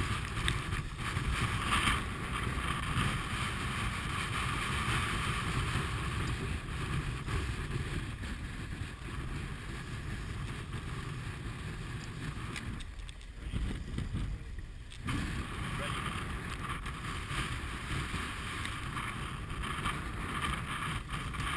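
Wind buffeting the microphone and water rushing and splashing along the hull of a J30 sailboat heeled and sailing hard upwind. Steady noise that eases briefly about two-thirds of the way through.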